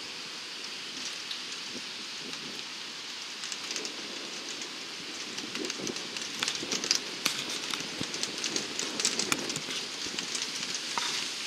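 Rain falling in a steady hiss, with sharp ticks of hailstones striking a surface that grow thicker and louder about halfway through.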